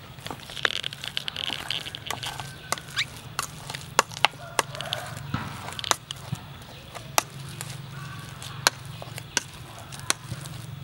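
A metal spoon mashing boiled potato in a stainless steel bowl, with irregular sharp clinks and scrapes of metal on metal as it strikes the bowl.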